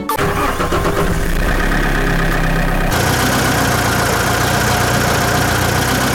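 An engine running steadily at idle, its sound changing abruptly about three seconds in.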